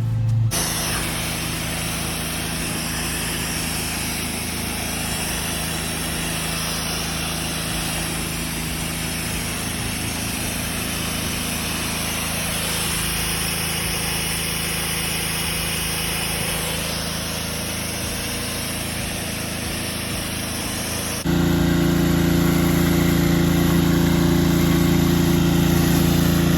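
Pressure washer running steadily, its engine drone under the hiss of the high-pressure spray as dirt is rinsed off concrete. About 21 seconds in the sound changes abruptly to a louder, more tonal engine hum with less spray hiss.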